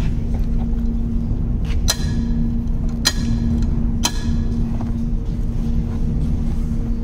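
Steady low machine hum over a constant rumble, with three sharp metallic clicks about a second apart, each ringing briefly.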